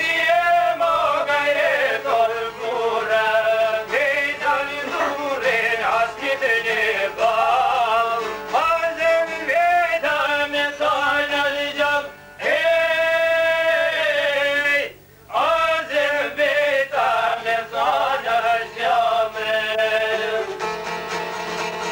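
A man singing an Albanian folk song in a high, ornamented voice with long held and sliding notes, accompanied by plucked long-necked lutes (çifteli). The singing breaks off briefly twice, about twelve and fifteen seconds in.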